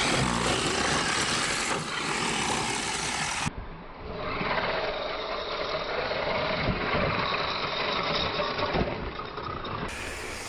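Hosim X25 brushless 4WD RC truck driving: tyre noise with a faint electric-motor whine. The sound changes abruptly about three and a half seconds in and again near the end.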